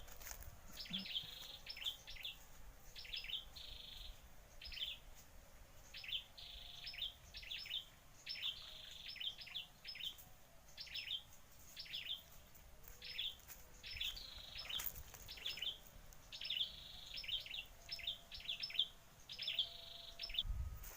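A small bird calling over and over with short, high chirps, often in quick pairs or little runs, with a few brief trills in between.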